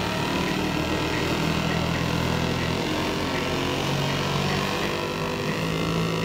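Modular synthesizers playing a dense electronic drone: held low notes that change every second or two over a steady noisy wash.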